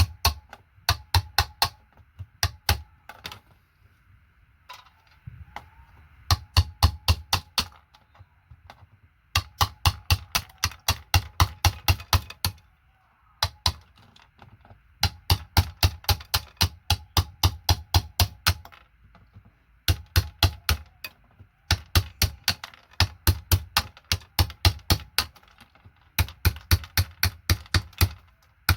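Rapid plastic clacking from a vintage keyboard's keys and switches as it is worked on, about five clicks a second, in bursts of a few seconds with short pauses between.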